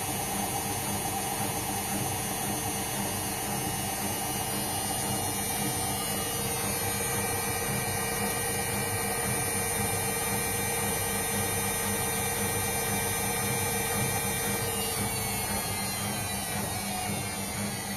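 Indesit washing machine's motor whining steadily as the drum spins, its pitch stepping up a little about six seconds in and sliding down over the last few seconds as the drum slows.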